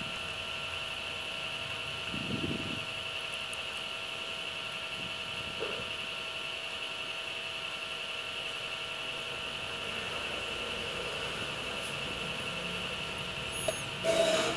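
Steady high-pitched whine over faint hiss: the background noise of the recording setup. There is a short low sound about two seconds in and a brief louder sound near the end.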